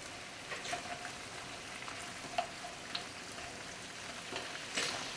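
Seafood frying in a pan with a steady, even sizzle, and a few light clicks and knocks as the pieces are turned in the pan.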